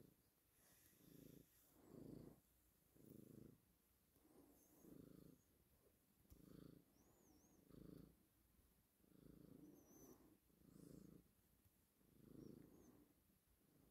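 Eight-month-old Minuet (Napoleon) kitten purring faintly while being stroked, the purr swelling and fading with each breath about once a second.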